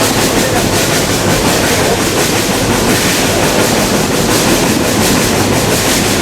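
A train running along the track: a loud, steady rumble and rattle of the train and its carriages.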